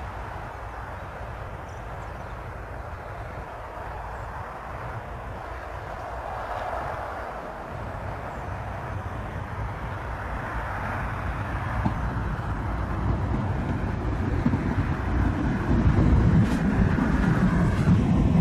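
Twin-engine narrowbody airliner's jet engines spooling up for takeoff. The noise grows steadily louder as the aircraft accelerates down the runway toward the listener, with a deep rumble building over the last several seconds.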